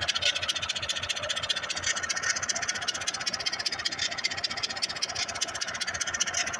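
Large Caterpillar diesel engine, running again after sitting for 20 years, idling steadily with a rapid, even exhaust beat from its open stack.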